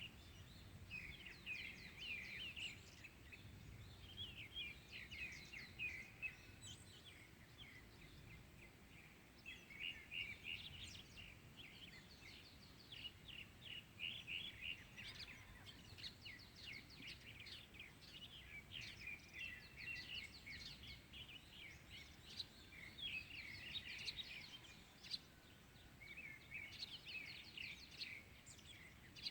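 Small songbirds chirping and twittering in quick, repeated bursts of high notes, faint, over a low background rumble.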